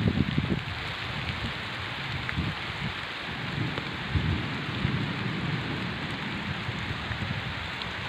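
Steady rain falling, an even hiss, with an irregular low rumble that is loudest at the very start and then dies down.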